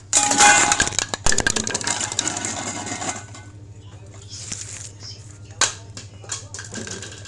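A dense, rapid clatter of small hard objects knocking together for about three seconds, then scattered single clicks and clinks, over a steady low electrical hum.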